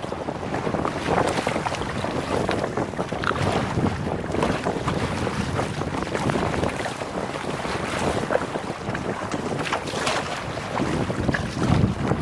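Double-bladed kayak paddle strokes splashing in choppy sea water, under wind buffeting the microphone.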